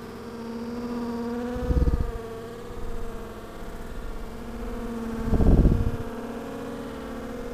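Low, wavering hum from honey bees flying at the entrance of a hive. Two louder low rumbles come about two seconds in and again around five and a half seconds in.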